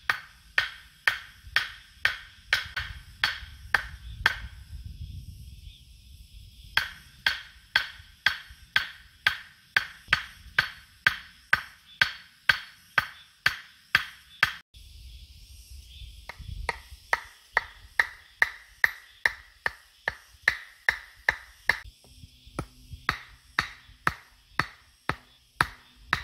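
A hatchet hammering the top of a wooden stake to drive it into the ground: sharp, ringing wooden knocks about two a second, pausing twice along the way.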